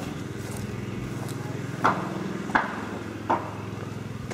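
A steady low mechanical hum with three sharp knocks, evenly spaced about two-thirds of a second apart, in the second half.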